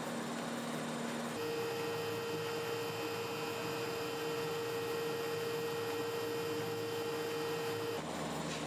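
A steady hum with a single held tone, which jumps to a higher pitch about a second and a half in and changes again near the end.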